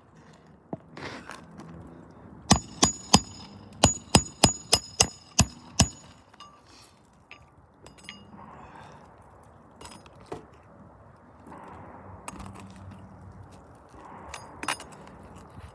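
Hammer driving roofing nails into an asphalt shingle: about eleven sharp, metallic ringing strikes, a quick three and then a run of eight, in the first half. A couple of lighter single knocks follow later.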